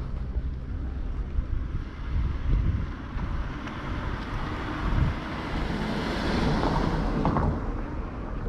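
A vehicle passing on the street, its noise swelling to a peak about six to seven seconds in and then easing off, over a low uneven rumble of wind on the microphone.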